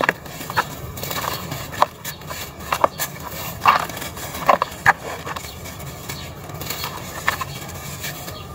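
Dry red dirt lumps crumbled by hand into loose powder in a plastic tub, with irregular gritty crunches and crackles. The sharpest crunches come in the first half, softer crumbling after about five seconds.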